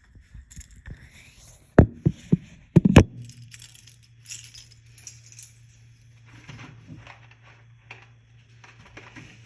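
Objects being handled and knocked together: a quick run of five or six sharp knocks and clinks about two to three seconds in, followed by a steady low hum and faint rustling.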